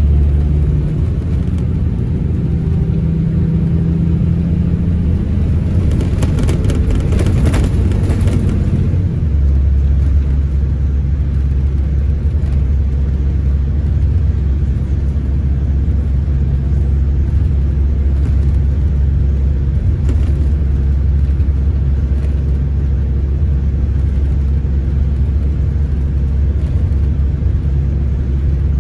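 Scania Irizar Intercentury coach driving, heard from the passenger cabin: a steady low engine drone with road and tyre noise. The engine drone grows stronger about nine seconds in, and there are a few seconds of rattling about six seconds in.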